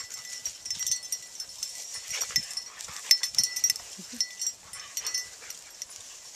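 Several dogs romping and rolling in tall dry grass: rustling and brushing, with small metallic jingles and clicks of collar tags. A short low grunt comes about four seconds in.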